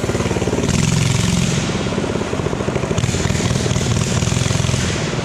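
Minibike engine running under throttle with a rapid, steady firing beat, swelling louder about a second in.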